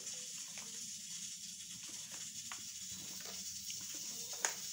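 Quiet room tone: a steady hiss with a few faint, short clicks, the clearest one near the end.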